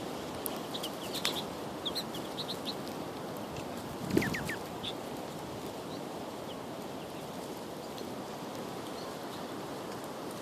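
Birds calling with short high chirps over a steady outdoor background hiss, with a louder burst of a few falling calls and a low thump about four seconds in.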